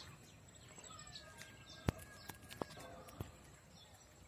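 Faint outdoor ambience with small birds chirping and a thin whistled note held for about a second and a half. Three sharp clicks cut through, the loudest about two seconds in.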